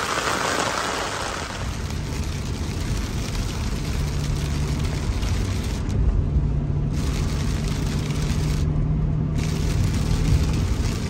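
Heavy rain hissing on pavement, giving way after about a second and a half to the steady low rumble of a car driving on a wet road, heard from inside the cabin.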